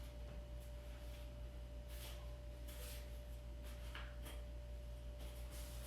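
Faint, brief rustling and handling noises from a camera being unpacked, a handful of soft scrapes, over a steady low electrical hum and a thin constant whine.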